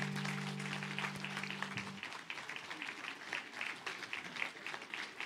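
Church congregation applauding, many hands clapping, while the last held chord of the song dies away about two seconds in.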